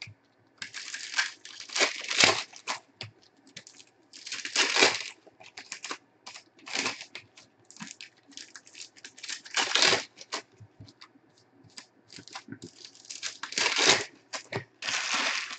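Foil trading-card packs being torn open by hand, with the wrappers crinkling: a series of irregular tearing bursts several seconds apart.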